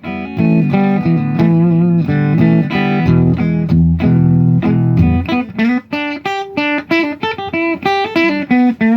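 Electric guitar with magnetic and piezo pickups being played: sustained chords for about the first five seconds, then a single-note melody higher up with bent and wavering notes.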